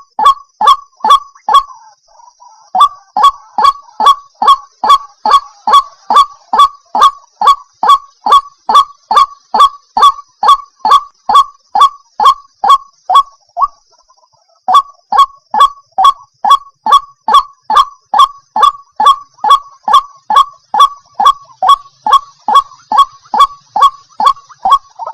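White-breasted waterhen (ruak-ruak) calling, a long run of short, nasal, honk-like notes repeated evenly about two to three a second, with a pause of about a second about halfway through before the calls resume.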